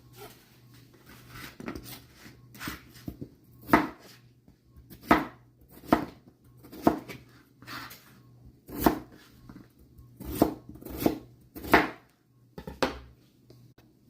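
Knife chopping on a cutting board: a slow, uneven series of sharp strikes about once a second, some much louder than others.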